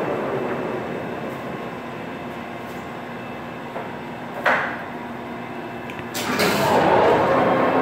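1994 Kingston hollow-spindle engine lathe's spindle and headstock gearing running down to a stop, the running noise fading. A sharp clunk comes about four and a half seconds in. Just after six seconds there is a clack as the spindle starts again, and the running noise builds back up.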